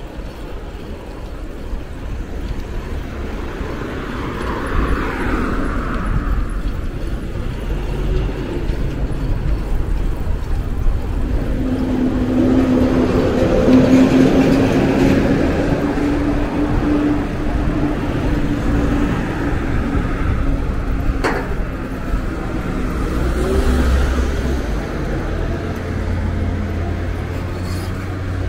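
Road traffic heard from a bicycle: a motor vehicle's engine hum swells to its loudest about halfway through and fades again, over a steady low rumble. There is a single sharp click about three quarters of the way in.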